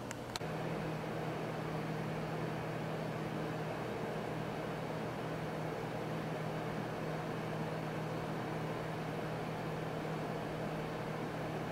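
Tower air purifier's fan running steadily: an even rush of air with a low hum. Two short clicks come right at the start, and about half a second in the sound steps up a little and holds.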